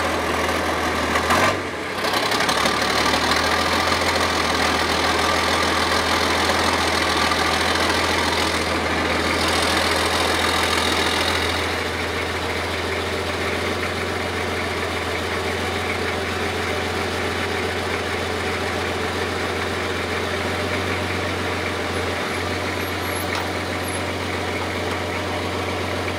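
Hotchkiss SPz kurz tank engine idling steadily after a cold start, while the alternator charges its flat batteries. There is a short dip about a second and a half in, and the engine runs a little quieter from about halfway.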